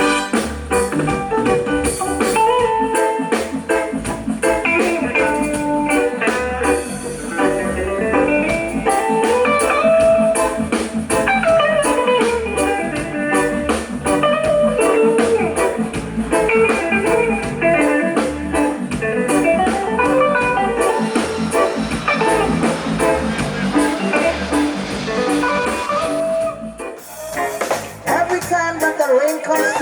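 Background music, instrumental with guitar and drums and no singing; it briefly drops out near the end, then starts again.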